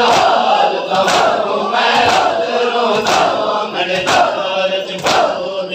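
A crowd of men chanting together while beating their chests in unison in Shia matam, the slaps landing in a steady beat about once a second.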